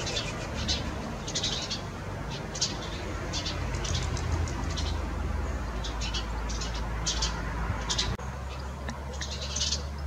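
House sparrow chirping: short, high chirps in irregular runs over a steady low background rumble.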